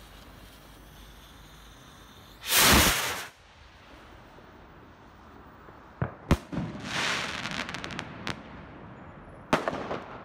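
Lonestar Sternschnuppen F3 firework rocket launching with a loud whoosh about two and a half seconds in, then bursting with two sharp bangs about six seconds in. Its crackling stars follow for about two seconds, and a last bang comes near the end.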